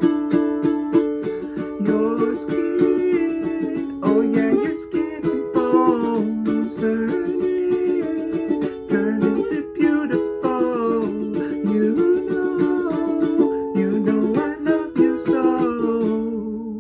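Kala solid bamboo tenor ukulele played solo: rapid strummed chords at first, then a melody picked out over chords.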